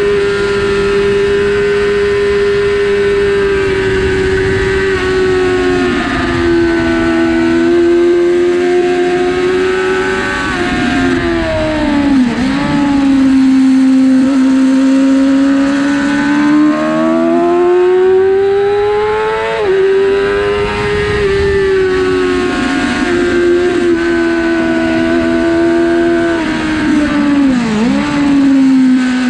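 A 2006 Yamaha R6's inline-four engine running hard at high revs on track. Its pitch holds high, then sweeps up and down with throttle and gear changes, with sharp dips about twelve seconds in and near the end, and a sudden jump up about twenty seconds in.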